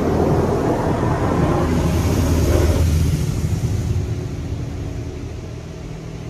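Water jets from a PDQ LaserWash 360 Plus touch-free car wash spraying the car, heard from inside the cabin as a loud, steady drumming over a low hum. Loudest about two to three seconds in, then fading.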